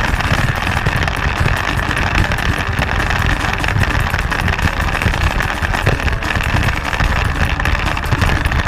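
Motorcycle engine running steadily while riding along, under heavy wind rush on the microphone.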